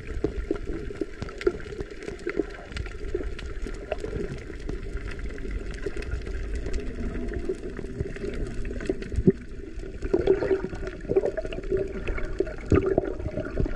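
Muffled underwater noise heard through a camera below the surface: a low watery rush and gurgling with many scattered small clicks and knocks, louder and busier in the last few seconds as swimmers haul up a fish trap.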